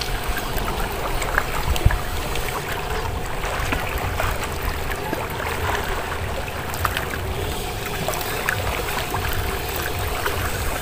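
Small waves lapping and splashing in shallow lake water, over a steady low rumble with a faint steady hum underneath.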